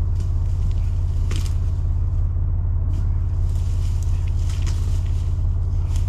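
Steady low rumble of an idling engine, with leaf rustling and two sharp knocks, about a second in and again past the middle, as cut pine log rounds are rolled over the forest floor.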